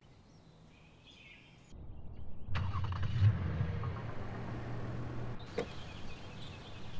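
Toyota Camry engine starting about two seconds in and then idling steadily, after a few quiet seconds of faint birdsong.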